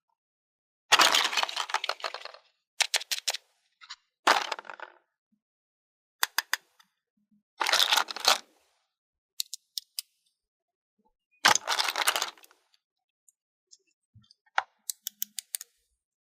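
Unboxing a plastic toy picnic playset: several bursts of crinkling and crackling packaging, alternating with quick runs of sharp clicks and clinks from small plastic pieces being handled.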